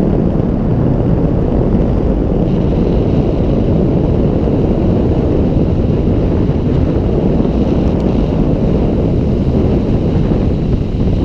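Steady, loud wind rush and road rumble from a moving car, with wind buffeting the microphone.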